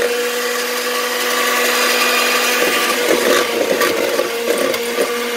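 Electric hand mixer running steadily in a plastic mixing bowl, whipping cream, with a steady high motor whine.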